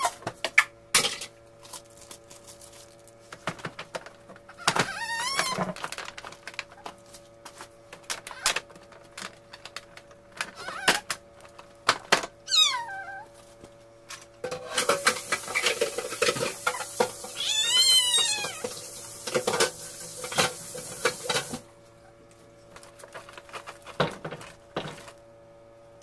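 Plastic bag crinkling while food is handled at an open fridge, loudest in a long stretch from about 15 to 21 seconds in, with sharp clicks and knocks of items being moved. A few short calls that rise and fall in pitch, like a cat meowing, come about 5, 12 and 18 seconds in.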